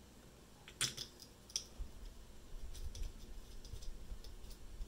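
Light clicks and taps of small metal and plastic parts handled by fingers: the screw and brush holder of a car alternator being fitted back in place. A few sharper clicks come about a second in, then fainter scattered ticks.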